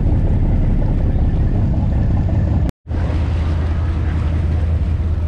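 Charter fishing boat's engine running under way, a steady low rumble mixed with water rush and wind on the microphone. The sound cuts out for a moment nearly three seconds in, then comes back as a steadier low hum with the same wash and wind.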